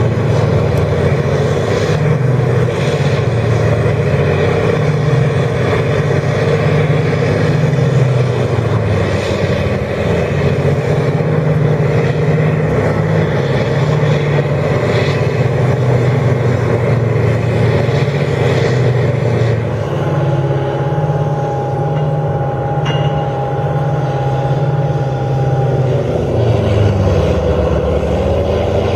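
Diamond Z 1260 tub grinder running under load as it grinds round cotton bales: a steady heavy engine drone with rough grinding noise over it. About two-thirds in, a thin steady whine joins for a few seconds, and near the end the drone dips briefly in pitch.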